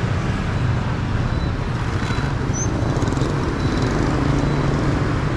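Steady city street traffic, mostly motor scooters with some cars running past close by, a constant low engine hum under the tyre and road noise.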